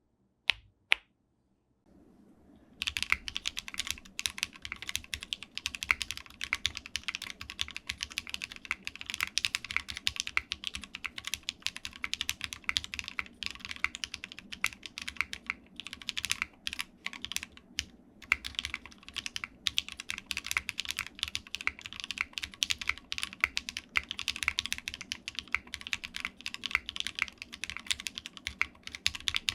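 Shelby80 custom mechanical keyboard with no foam inside, typed on fast and continuously after two lone key clicks at the start, with short pauses now and then.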